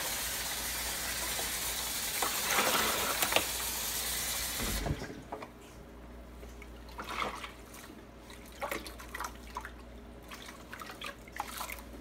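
Kitchen tap running steadily into a stainless steel sink, shut off about five seconds in. After that come quieter drips and small splashes of water from a wet wool skein being lifted in a tub of rinse water.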